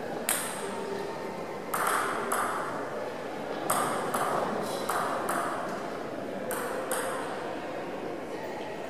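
Table tennis ball clicking against the bats and the table: about ten sharp ticks, some single and some in quick runs a few tenths of a second apart.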